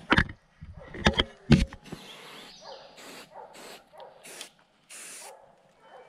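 Footsteps on dry leaf litter and rock, three heavy steps in the first two seconds, followed by a run of short, hissy rustling bursts about every half second.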